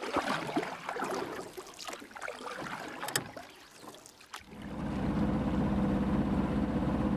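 Water sloshing and bubbling with scattered clicks. About four and a half seconds in it gives way to a louder sailboat engine running with a steady, fast low chug.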